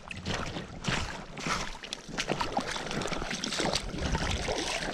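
Shallow stream water splashing and sloshing irregularly around wading feet and a landing net as a hooked brown trout is brought in.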